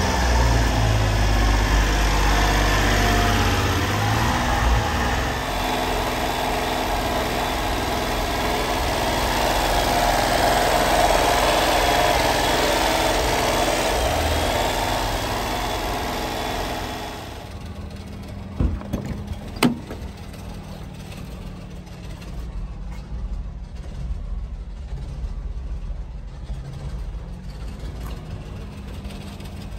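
The Honda Acty's small 656 cc three-cylinder engine idling steadily, loud and close for the first half. About seventeen seconds in it drops to a quieter low hum, with two sharp clicks shortly after.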